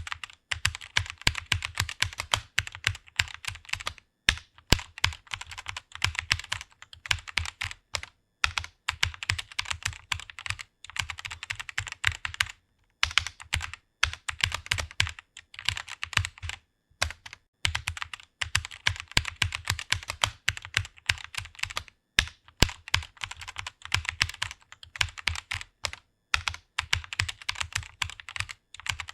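Fast typing on a computer keyboard: rapid runs of keystroke clicks, broken by brief pauses every few seconds.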